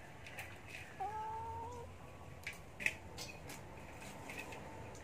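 A cat meows once about a second in, one drawn-out call rising slightly in pitch. Around it, hands rustle through dry mushroom substrate in a metal basin, with a sharp click near the middle.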